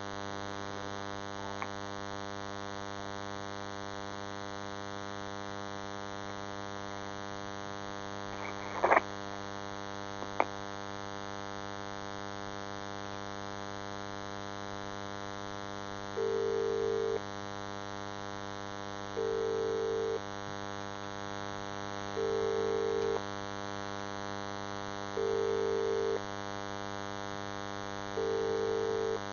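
Telephone line on hold with a steady electrical hum; a click about nine seconds in as the call is put through, then the British ringing tone sounds five times, one burst every three seconds.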